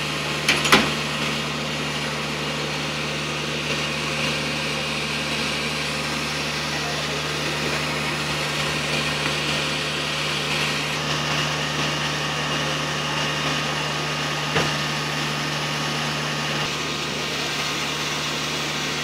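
Fire engine's engine running steadily, powering its water pump for the hoses laid from the rear pump panel. A sharp knock sounds under a second in and another about three quarters through.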